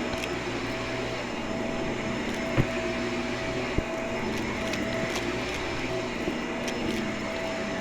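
Vacuum cleaner running steadily, an even motor whine, with two short knocks, about two and a half seconds in and again about a second later.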